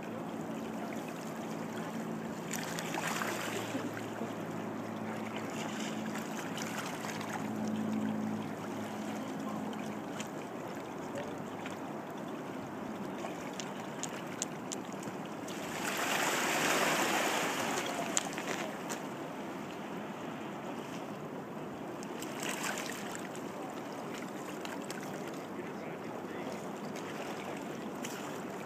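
Steady rush of river water at a rocky shoreline, with wind on the microphone. A faint low hum runs through the first ten seconds, and the rush swells louder for about two seconds around the sixteen-second mark.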